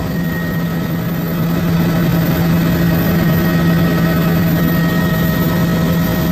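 Helicopter engine and rotor noise heard from inside the cabin in flight: a loud, steady drone with a strong low hum and a thin high whine above it.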